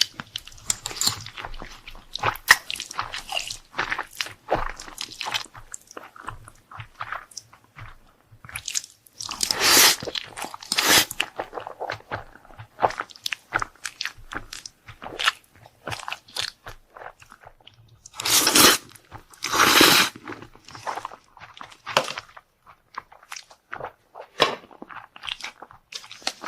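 Close-miked eating: a person biting and chewing crunchy food in irregular bites, with a few longer, louder crunching bites about a third and about two thirds of the way through.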